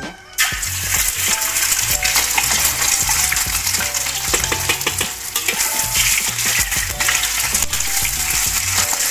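Two eggs dropped into hot oil in a metal wok, sizzling suddenly about half a second in and frying noisily after that. Later a metal spatula stirs the egg, clicking and scraping against the wok.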